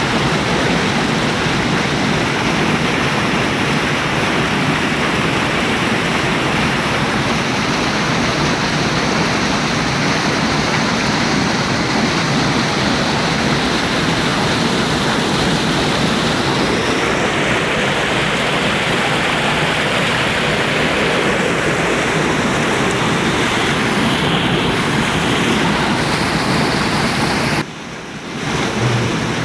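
Muddy water rushing steadily along a concrete irrigation channel, a constant loud wash. It dips briefly near the end.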